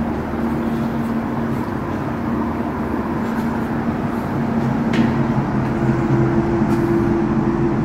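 Steady electrical hum of a CAF-built tram standing at the platform with its onboard equipment running, over a light background noise; a second, higher hum tone joins in about six seconds in.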